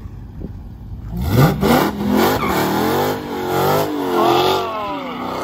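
2016 Dodge Challenger Hellcat's supercharged 6.2-litre V8 idling, then about a second in revving sharply up as the rear tyres break loose into a second-gear burnout. The engine pitch then rises and falls as the throttle is worked while the tyres spin.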